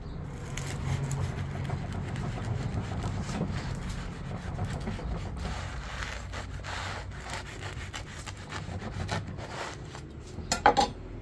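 Large chef's knife sawing lengthwise through a crusty baguette on a wooden cutting board: a steady back-and-forth rasp of the blade through the crust. A few sharp knocks come near the end.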